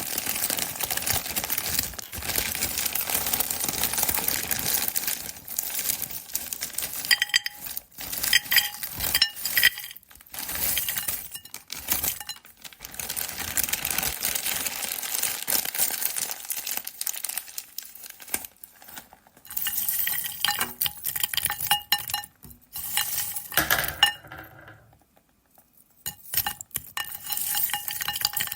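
French fries dropping into a bowl: a dense, crisp rattle of many small clicks, with the bowl ringing faintly under the impacts. It comes in several runs, with a short pause about 25 seconds in.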